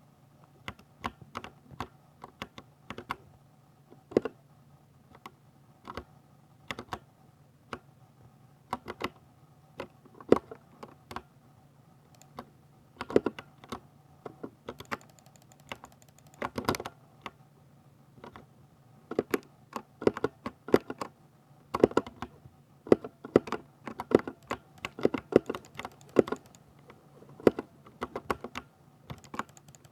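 Typing on a 60% mechanical keyboard with Ducky silver switches: irregular runs of sharp keystroke clicks with short pauses between bursts, over a faint steady low hum.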